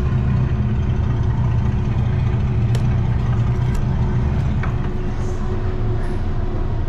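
Electric go-kart running along the track: a steady low rumble with a constant hum over it and a few faint clicks.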